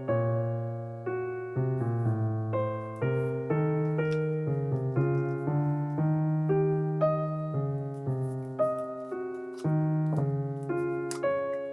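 Background piano music: a steady flowing melody over sustained bass notes.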